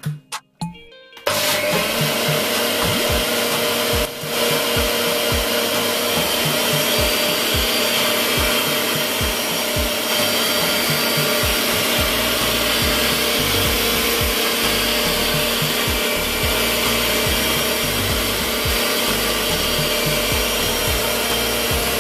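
Graef personal blender's motor starts about a second in and runs steadily at high speed, blending a milky liquid in its bottle, with a brief dip about four seconds in.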